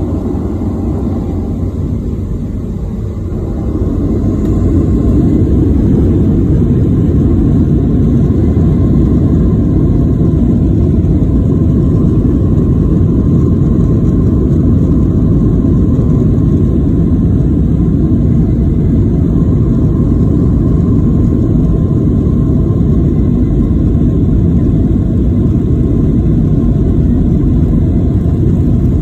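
Boeing 737 jet engines at takeoff power, heard from inside the cabin over the wing, with a dense steady rumble of engine and runway roll. The sound swells up about four seconds in as the thrust comes up, then holds steady.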